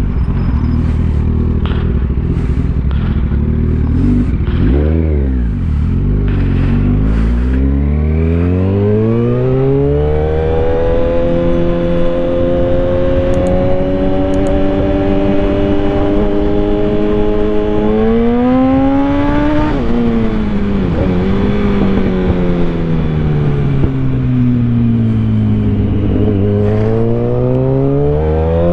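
Motorcycle engine heard from the rider's seat. It runs at low revs with a couple of brief throttle blips, then climbs smoothly in pitch and holds steady at speed. About two-thirds through it drops off the throttle, and it climbs again near the end.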